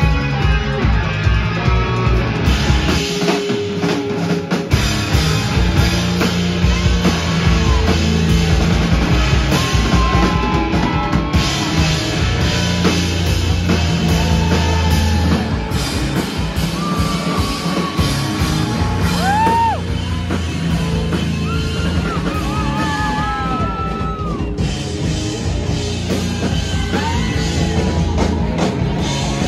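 A rock band playing loud live, with distorted electric guitars, a drum kit and vocals.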